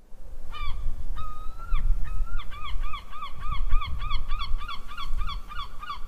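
Gull giving its long call: a few drawn-out notes, then a fast run of short yelping notes, about four a second, over a low rumble.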